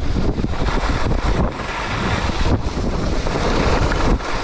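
Wind buffeting the microphone of a mouth-mounted GoPro while skiing downhill: a dense, steady rush with a heavy deep rumble. It starts suddenly just before the run gets going.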